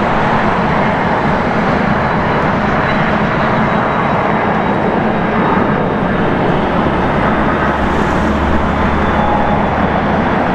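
Steady, even airport noise from jet airliners' engines running on the taxiways. A deeper hum swells for a couple of seconds near the end.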